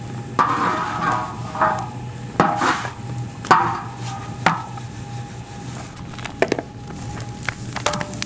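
Irregular knocks and taps as rotis are turned and pressed on a large tawa griddle over a wood fire, about a dozen sharp strikes spread unevenly, over a faint steady hum.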